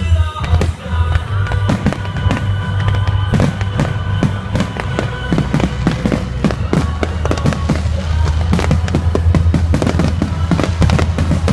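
Fireworks going off in a rapid string of sharp bursts and crackles over music, the bursts sparse at first and thickening into a dense barrage a few seconds in.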